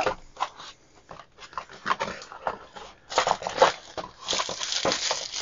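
Cardboard box being opened and handled, with scattered scrapes and taps. From about four seconds in, a plastic bag crinkles as the multimeter wrapped in it is lifted out.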